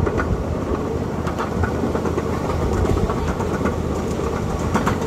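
Miniature train rolling along its track, heard from on board: a steady rumble with irregular clicks from the wheels over the rails.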